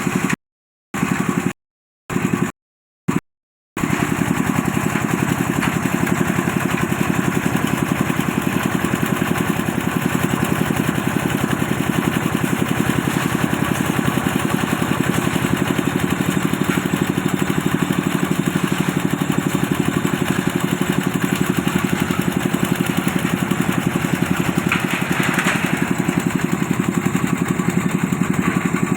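An engine running steadily with a fast, even chug. The sound cuts out to silence several times in the first few seconds, then runs on without a break.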